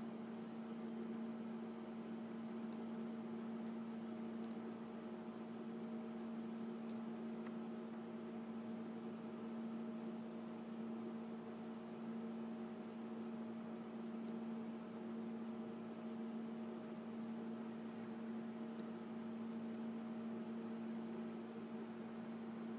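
Steady electric hum, one unchanging low tone with a few fainter overtones over a light hiss.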